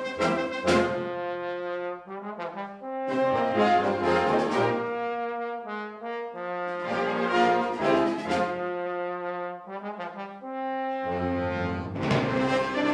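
Wind band playing a concert piece for solo bass trombone and band, with brass to the fore: full, loud chords swell and fade in repeated phrases, with short lulls between them.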